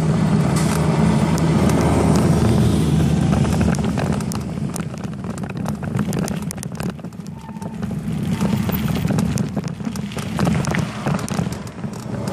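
Riding noise picked up by a bicycle-mounted camera: a steady low rumble with a rapid scatter of clicks and rattles from the bike over the road, easing a little about halfway through before building again.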